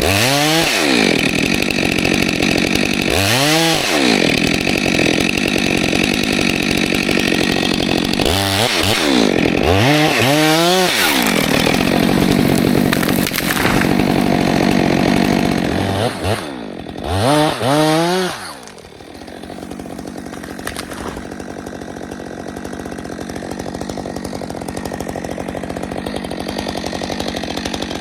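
Stihl 462C chainsaw running at high revs, revving up and back down several times. About two-thirds of the way through it drops to a quieter, steady running sound.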